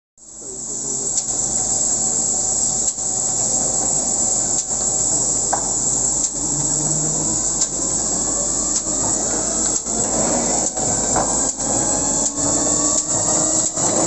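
Cavalleri CT12 paper sheeter running: a steady hiss with a regular knock a little under once a second as its cross-cutter cuts each sheet. Near the end the knocks come closer together and a faint whine slowly rises.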